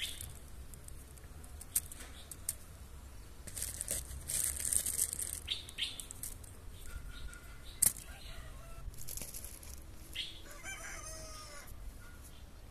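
A rooster crows once, about ten seconds in. Before that come rustling and a few sharp knocks from potatoes being handled and dropped into a wicker basket.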